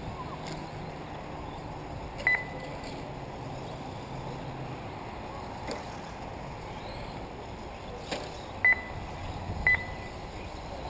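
Short electronic beeps from a race lap-counting system, three in all: one about two seconds in and two a second apart near the end, each marking a car crossing the timing line. Under them is a steady outdoor hiss.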